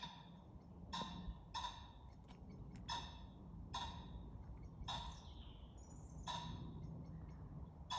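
Common pheasant giving a series of short, harsh calls, about eight in all, at irregular intervals roughly a second apart.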